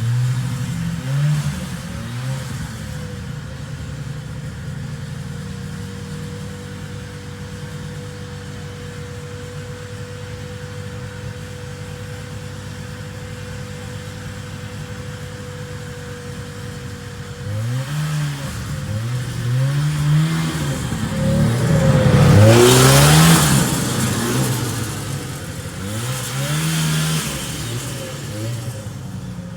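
Two-stroke engine of a 1974 John Deere 600 snowmobile: blipped at the start, idling steadily for about fifteen seconds, then revved again and again in short rising bursts, the loudest about two-thirds of the way through.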